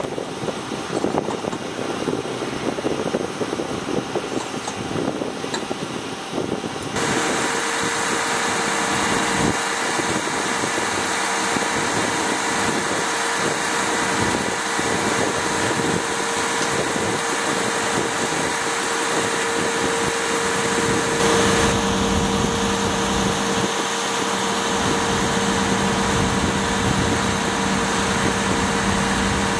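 Uneven rushing noise gives way abruptly, about seven seconds in, to an engine running steadily with a held whine. A lower steady hum joins about two-thirds of the way through.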